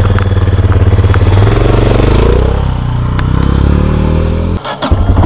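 Motorcycle engine running under way, its pitch shifting and gliding about two seconds in, with a brief drop in sound about four and a half seconds in before it picks up again.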